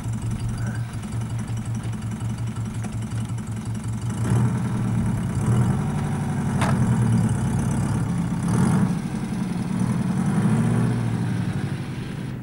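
Car engine idling with a steady pulsing beat, growing louder and more uneven about four seconds in, with a short rev near the end. A single sharp click sounds midway.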